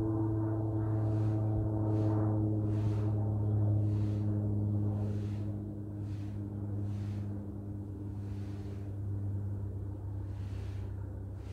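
A low, steady mechanical drone with a stack of higher overtones, which fade out about halfway through while the deep hum carries on.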